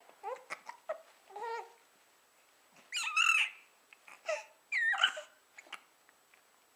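A young child babbling and squealing in short high-pitched bursts, with the two loudest squeals about 3 and 5 seconds in.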